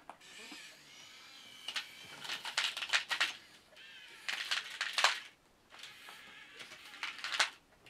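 Small electric motors and gearboxes of a 1/50-scale radio-controlled Komatsu PC1250-8 excavator model whining in three short spurts, with a gear rattle, as its functions are worked. A faint whine carries on between the spurts.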